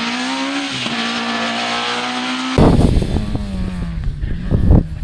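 Rally car engine under hard acceleration, its pitch climbing, dropping at a gear change about a second in, then climbing again. About two and a half seconds in, the sound cuts abruptly to a louder low rumble with irregular thumps, over a fainter engine note falling away.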